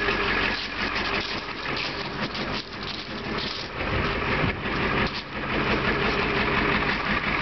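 Ford F-350 pickup's diesel engine idling, with a steady engine clatter.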